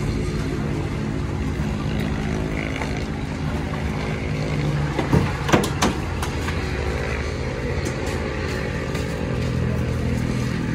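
A vehicle engine running steadily, with a few sharp clicks or knocks about five to six seconds in.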